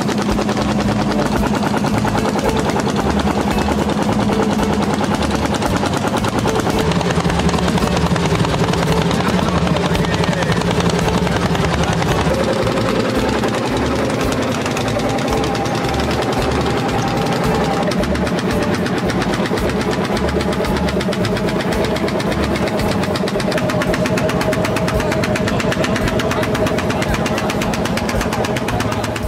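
Vintage Landini L55 tractor's single-cylinder hot-bulb engine running under load while pulling a plough, with a steady, rapid beat.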